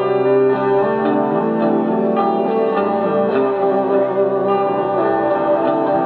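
Electric guitar played through an amplifier and effects pedals: picked notes with heavy echo pile up into a dense, continuous wall of many overlapping held tones.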